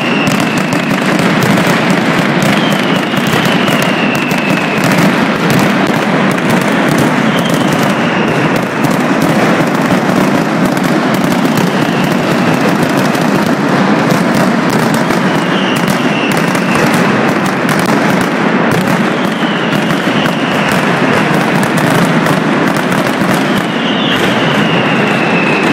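Mascletà: a continuous barrage of firecracker detonations, so dense that the bangs merge into one steady, loud crackling din. A short falling whistle cuts through it every few seconds.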